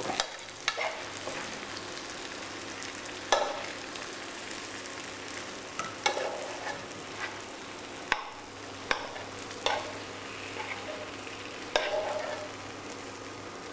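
A metal spoon scraping and knocking against a nonstick frying pan as cooked vegetables are scooped out onto a plate, in irregular strokes over a steady faint hiss.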